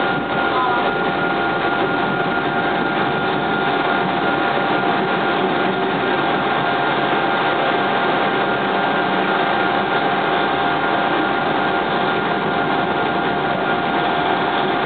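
A train running steadily, a continuous rumble with a steady high whine over it.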